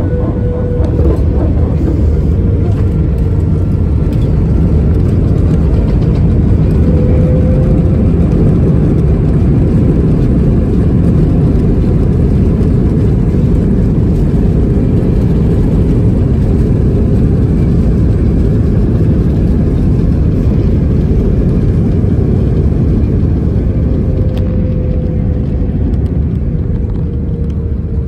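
Airliner's wing-mounted jet engine and the rush of the landing rollout, heard inside the cabin. A loud, steady low rumble with a faint whine swells about a second in and eases off slowly toward the end.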